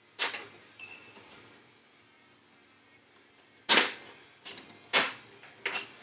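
Sharp metal clanks from work at a steel bench vise with a motorcycle wheel: one strike at the start and a few light clinks about a second in, then four loud clanks in the last two and a half seconds.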